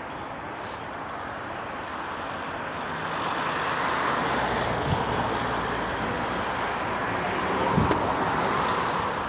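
Jet engines of a Boeing 737-800 (CFM56-7B turbofans) running at low power on the ground: a steady jet noise that grows louder about three seconds in.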